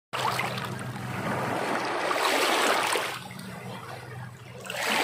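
Small sea waves washing up on a shore, the wash swelling to its loudest about two seconds in, easing off, then surging again near the end.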